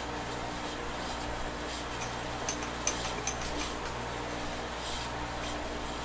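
Brass air-hose quick-coupler being handled and pushed onto a hose barb held in a lathe chuck: a few faint small metallic clicks over a steady low hum.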